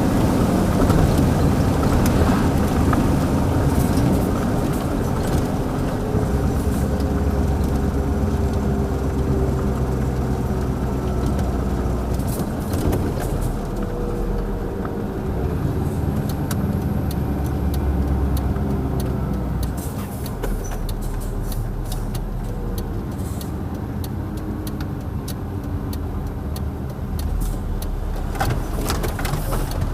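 1989 Mercedes-Benz SK 1748 truck's V8 turbodiesel running under way. Its note climbs in pitch through the middle, then drops back and quietens about two-thirds of the way in.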